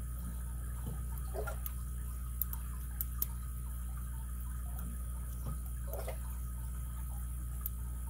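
A handful of faint, short clicks from a lock pick working the pin stacks of a Best padlock's core under tension, over a steady low hum.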